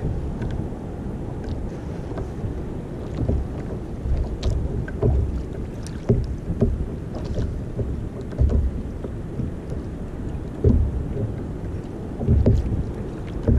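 Wind buffeting the microphone over small waves slapping against a plastic sit-on-top kayak's hull, in uneven low gusts, with a few faint ticks.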